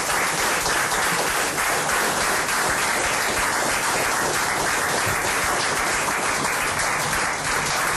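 Applause: many hands clapping in a dense, steady wash that holds at an even level throughout.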